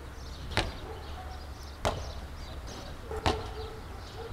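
Three sharp knocks, about a second and a quarter apart, over faint high chirping.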